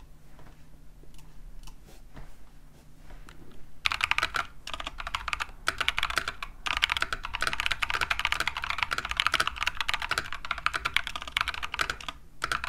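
Fast typing on a modded Epomaker TH66 mechanical keyboard with lubed Gazzew Boba U4T tactile switches, PE foam and tape mods, and dye-sublimated PBT XDA keycaps, giving a thocky keystroke sound. A few light key presses come first, then dense, steady fast typing from about four seconds in, with a short pause near the end.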